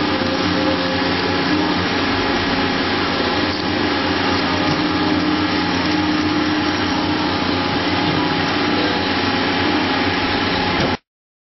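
Milling machine cutting a metal block under flood coolant: a steady, loud machining noise with a constant hum from the spindle. It cuts off abruptly near the end.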